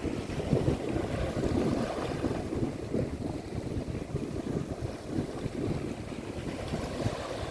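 Wind buffeting the microphone in uneven gusts over the rush and splash of sea water, as aboard a boat under way.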